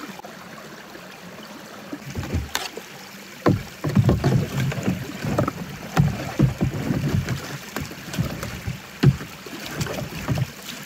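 Kayak being paddled and pushed over a beaver dam: irregular paddle strokes, splashes and knocks of paddle and hull, starting about two seconds in, over the steady rush of water spilling through the dam.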